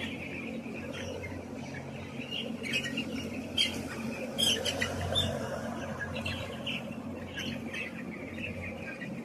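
Young chickens chirping and peeping, many short high calls overlapping throughout, over a steady low hum.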